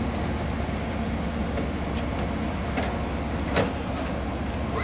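Low steady rumble of an Amtrak passenger train alongside the platform, with one short sharp sound about three and a half seconds in.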